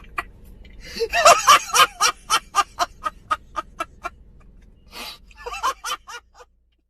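A person cackling with laughter in rapid ha-ha pulses, about four or five a second, loudest about a second in, breaking off and starting again in a second bout around five seconds in.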